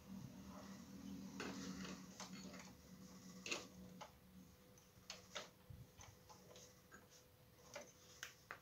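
Faint, scattered clicks and light taps of a screwdriver working at the screws and plastic parts of a Xerox copier's transfer-roller housing, with one sharper click about three and a half seconds in. A low steady hum runs underneath for the first few seconds.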